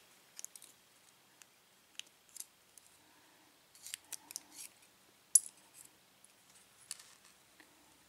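Faint, scattered small clicks and light scrapes of a padlock's top pins and spools being taken out of their chambers and handled, with one sharper click a little past the middle.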